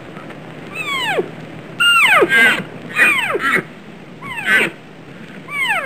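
Deer calling: a run of high, squealing calls, each falling steeply in pitch, some coming in quick pairs.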